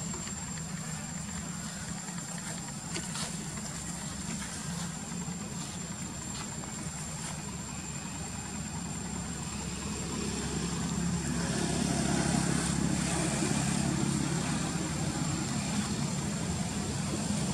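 A steady low engine hum, like a vehicle idling, growing louder about ten seconds in, with a constant thin high whine above it.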